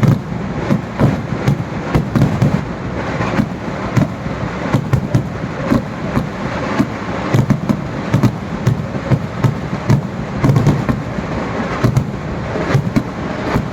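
Fireworks barrage: a dense, irregular string of loud bangs and cracks, several a second, overlapping over a continuous rumble with no break.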